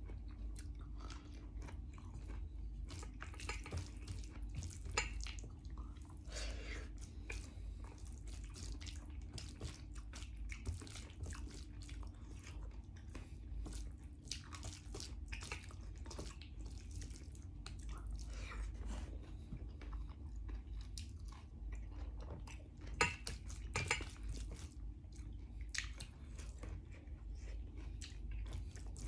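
Irregular light clicks and knocks of kitchen work, over a low steady hum.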